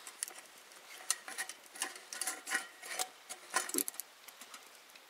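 A utensil scraping and tapping against a cooking pot in short, irregular strokes, as food is worked loose and moved to another vessel.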